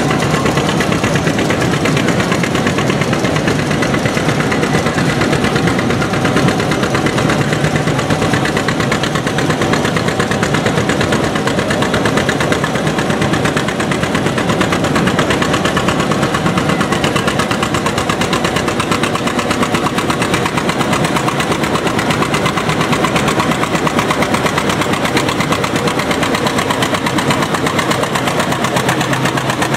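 Unstyled John Deere two-cylinder tractor engine running steadily under load as it pulls a weight sled, its exhaust beat even throughout.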